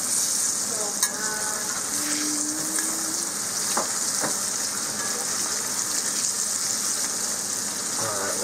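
Cornmeal-coated crappie fillets frying in hot grease in a cast iron skillet: a steady, hissing sizzle, with a few light clicks as metal tongs turn the fillets.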